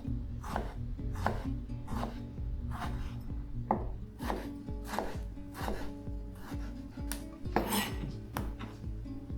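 Kitchen knife chopping tomatoes finely on a chopping board, a steady stroke a little more often than once a second, with soft background music.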